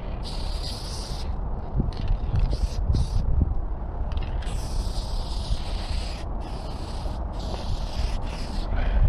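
Aerosol spray paint can hissing in bursts of varying length as an outline is sprayed, short squirts early on and a long burst of about two seconds in the middle. A low rumble of wind on the microphone runs underneath.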